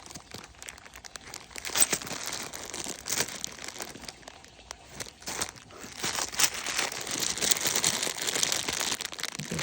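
Plastic bags of beads crinkling and rustling as they are handled, with many small sharp clicks, busier in the last few seconds.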